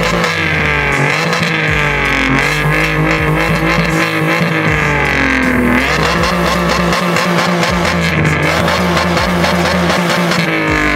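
Alfa Romeo 147's engine running at the twin tailpipes, revs held up and swinging down and up several times.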